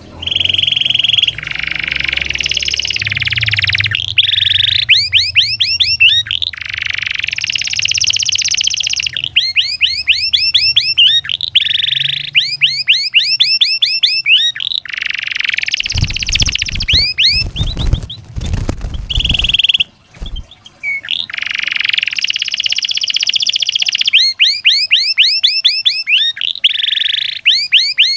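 Domestic canary singing a long, loud song of rapid trills, rolls and quick repeated sweeping notes. A few seconds of low rumbling rustle come past the middle, and the song breaks off briefly around twenty seconds in.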